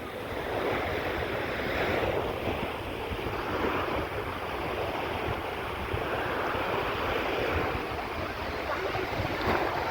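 Sea surf washing in and out in repeated swells, with wind buffeting the microphone as a low rumble.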